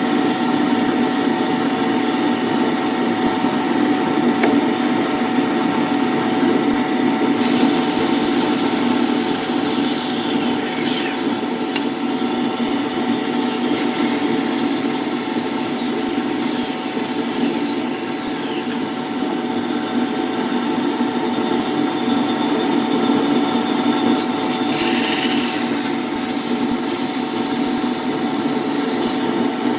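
Power tool running steadily while it works wood. There are two stretches of harsher grinding contact noise as the tool bears on the wood: a long one from about a quarter of the way in to past the middle, and a shorter one near the end.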